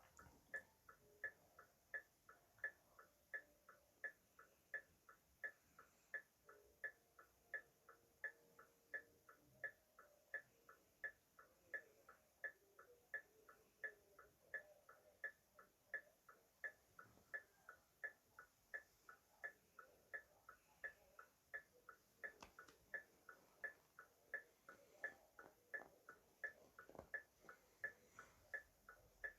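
Car hazard-light flasher clicking faintly in a steady, even rhythm of sharp ticks.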